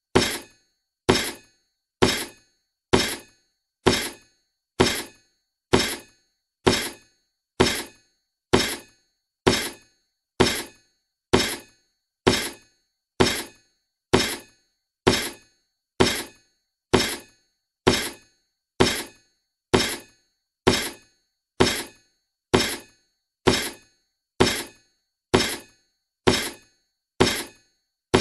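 Sharp, glassy clinks repeating evenly about once a second, each dying away quickly: a looped clinking sound effect.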